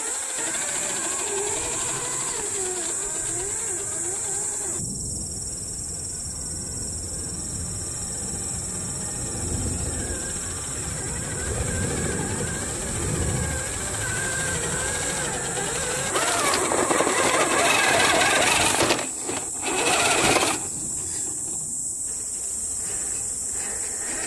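Small electric motor and gearbox of a 1/10-scale Axial SCX10 III crawler whining at varying pitch as it crawls over rock and dirt. A louder stretch of rough noise lasts a few seconds past the middle. A steady high hiss runs underneath.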